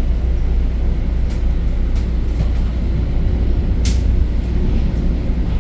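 Steady low rumble and running noise of an EXO commuter train, heard from inside the coach while it is moving. One short sharp click about four seconds in.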